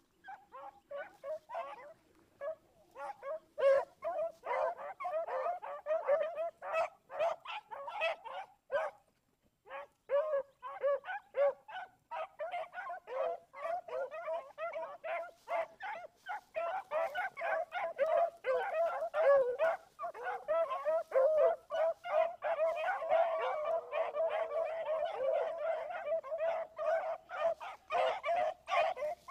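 A pack of beagles bays in chorus while running a rabbit's scent trail: many short, repeated calls overlapping one another. There is a brief pause about nine seconds in, and from about twelve seconds on the calls grow denser and nearly continuous.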